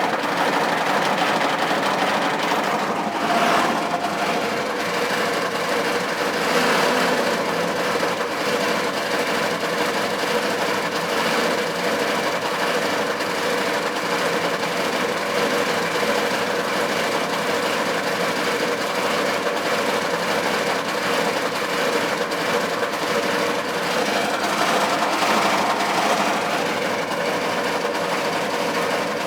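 GM 6.5-litre V8 diesel engine of a K3500 pickup running with no throttle, knocking and rattling, its sound briefly swelling a few times. The owner suspects a rod knock and is unsure whether it comes from a broken or cracked piston, a spun bearing or a head gasket.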